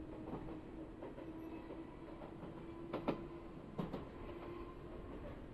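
Enoden electric train running, heard from inside the car: a steady rumble with a faint low hum, and two sharp clacks about three and four seconds in.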